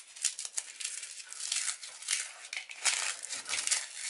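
Puffed rice cakes being broken and crumbled by hand into a bowl: dense, irregular dry crackling.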